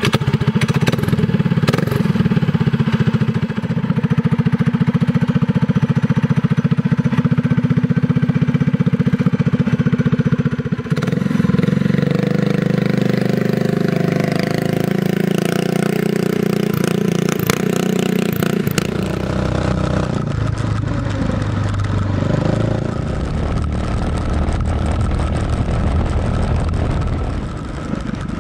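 Predator 212 cc single-cylinder four-stroke pull-start engine on a mini monster truck go-kart, running loud and steady just after being started. About eleven seconds in the sound shifts as the kart drives off. It shifts again, lower and rougher, about two-thirds of the way through.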